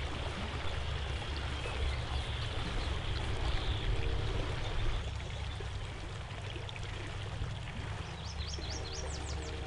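Steady trickling stream of liquid pouring onto the ground: a man urinating into the bushes.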